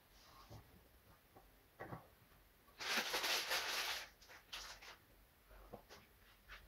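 Close handling noise as fingers work a small tuft of fibre onto a gas heater's pilot and thermocouple bracket: a few soft clicks and taps, and a rustle lasting about a second near the middle.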